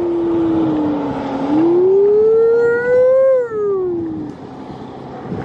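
A man imitating a whale call with his voice: long sliding hoots that fall, rise again and fall away, stopping a little after four seconds, over wind noise.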